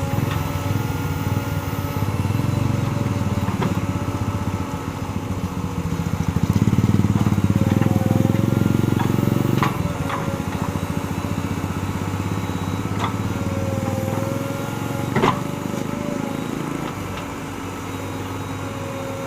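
JCB 3DX Super backhoe loader's diesel engine running, working harder for a few seconds in the middle, with a sharp knock about fifteen seconds in.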